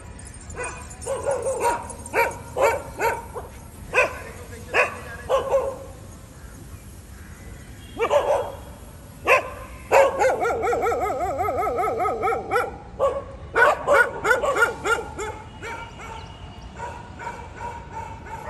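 Dogs barking in repeated short barks. About ten seconds in there is one continuous wavering cry lasting a couple of seconds, then another run of barks.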